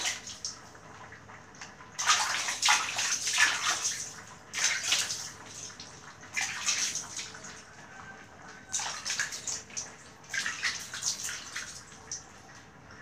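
Water splashing in repeated bursts, scooped by hand from a basin and splashed over a cat being washed on a tiled floor, with short quiet gaps between the splashes.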